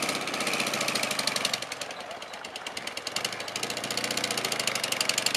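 Engine of a WWII-style military sidecar motorcycle running at low speed, a fast, even chugging of firing pulses. It eases off about two seconds in and picks up again about a second later.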